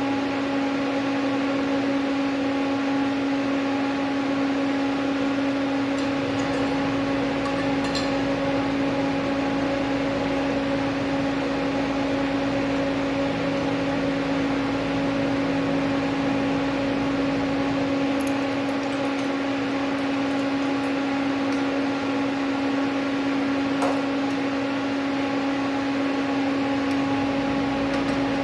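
A steady machine hum at one constant pitch with a steady hiss underneath, running without a break; a few faint clicks are heard around it.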